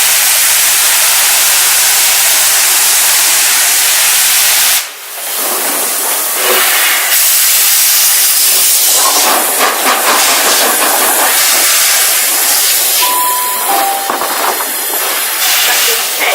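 Peppercorn A1 Pacific steam locomotive 60163 Tornado letting off steam: a loud, steady hiss that cuts off suddenly about five seconds in, with quieter hissing continuing afterwards.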